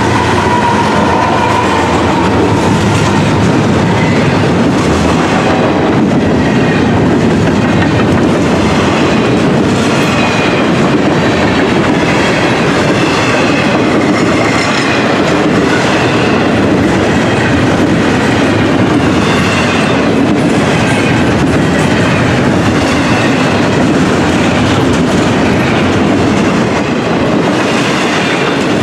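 Freight train passing close at speed: a loud, steady rumble of steel wheels on rail with a rhythmic clickety-clack of the cars rolling by.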